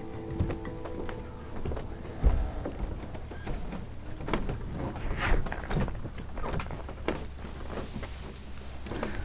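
A front door shut with a thump about two seconds in, then scattered footsteps, shuffling and knocks as people walk out across a porch and sit down on a bench. A single short bird chirp comes about halfway through.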